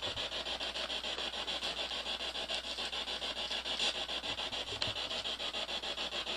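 Ghost-hunting spirit box sweeping through radio frequencies: a steady hiss of static chopped into short pulses several times a second.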